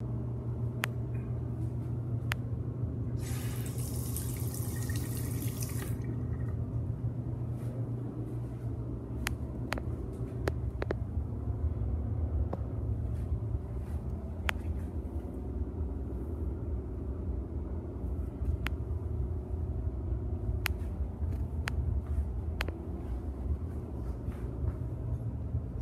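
Steady low hum in a small tiled restroom, with a sink faucet running briefly for about three seconds near the start and scattered light clicks and taps.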